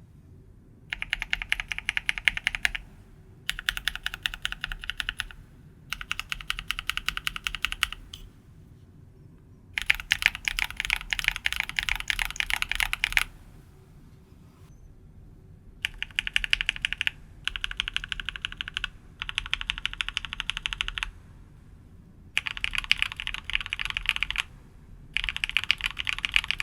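Lubed and filmed linear mechanical keyboard switches being typed on in short rapid bursts, about nine runs of fast clacking keystrokes, each a second or three long, with brief pauses between them.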